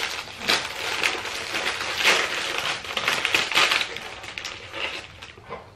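Clear plastic cookie sleeve crinkling and crackling as it is pulled open by hand. The crackling dies down about five seconds in.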